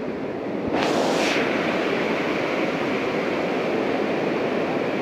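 Full lake overflowing a dam spillway: a heavy, steady rush of water falling over the weir. It grows louder about a second in, with a brief hiss.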